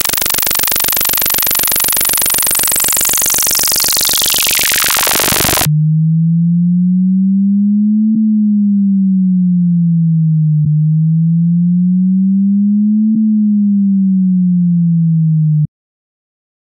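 Synthesized water-eject test tones. First a harsh buzz of rapid pulses whose top end closes down steadily. About six seconds in it cuts abruptly to a single low tone that slides slowly up and down twice, with a faint click at each turn of pitch. It stops short about a second before the end.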